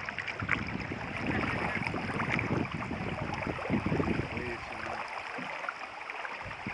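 Canoe on moving water: water splashing and wind rushing over the microphone, with a brief voice about four seconds in.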